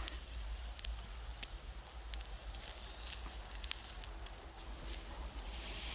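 Small wood campfire crackling under a grill basket, with scattered sharp pops and a steady low rumble underneath.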